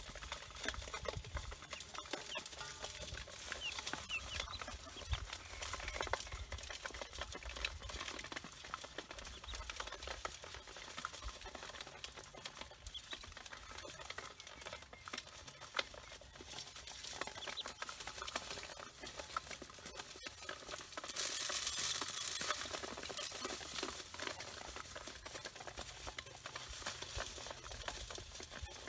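A bowlful of ducklings peeping, with many short high cheeps over the patter and rustle of the birds shuffling in a metal basin. About three-quarters of the way through, a louder hissing rustle swells for about two seconds.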